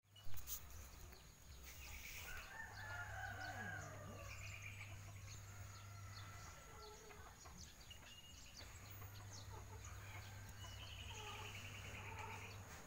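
Faint chickens clucking and a rooster crowing, with small birds chirping. A sharp click sounds just after the start.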